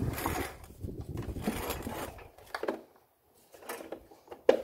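Plastic cover being pressed and worked onto a cordless cylinder mower's housing by hand: irregular scraping and rubbing of plastic on plastic, a short pause, then one sharp click near the end.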